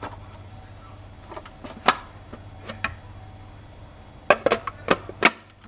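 Sharp clicks and knocks of plastic parts of a Hurom juicer being handled, a few scattered and then a quick cluster near the end, over a low steady hum that cuts off right after the last knock.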